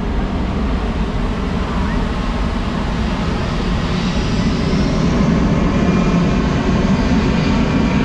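Jet engines of a large four-engine military airlifter or tanker flying by, a steady rumble that swells about halfway through, with a faint high whine sliding in pitch.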